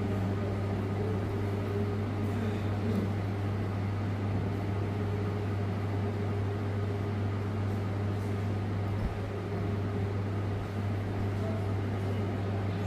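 A steady low electrical hum with a faint even background hiss, unchanging throughout.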